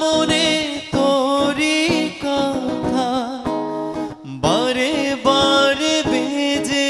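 A male singer holding long, wavering wordless notes in several phrases over strummed acoustic guitar.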